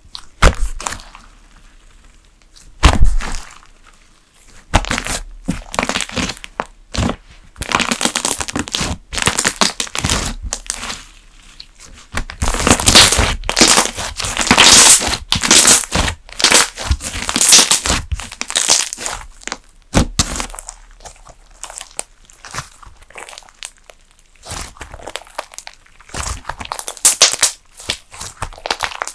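Thick slime being squeezed, pressed and stretched by hand, giving irregular clusters of sharp pops and crackles with short quiet gaps between them.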